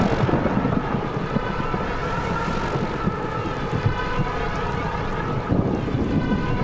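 Cartoon sound effect of a strong wind blowing steadily, a loud dense rushing noise.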